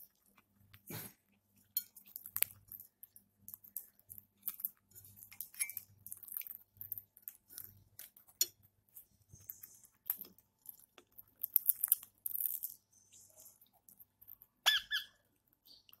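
Indian ringneck parakeet pecking and nibbling food from a small plastic dish: scattered crisp clicks and crunches of the beak. A single short squeaky call comes near the end.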